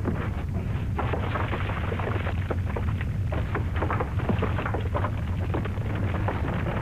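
Earthquake aftershock effect: a deep, continuous rumble with rocks and rubble clattering and crashing down into a pit. It cuts off suddenly at the end.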